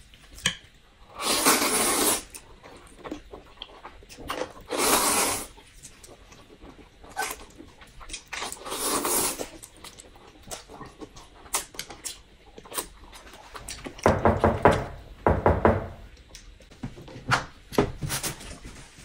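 Noodles being slurped in long, hissing pulls, three of them in the first half, with small clicks of chewing and chopsticks between. A low pitched, hum-like sound comes in twice, about fourteen and fifteen seconds in.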